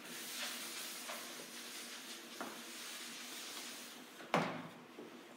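Whiteboard eraser rubbing marker notes off the board: a steady scrubbing hiss with a few faint ticks, then a single sharp knock about four seconds in.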